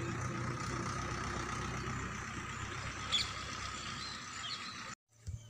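Steady mechanical drone, like an engine idling, with a couple of short chirps about three seconds in; it cuts off abruptly near the end.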